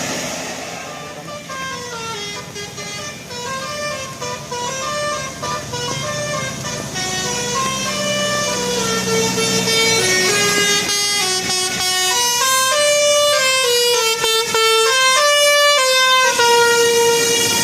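Bus 'telolet Basuri' musical horn playing a melody: a string of held horn notes stepping up and down in pitch, with several notes overlapping near the end.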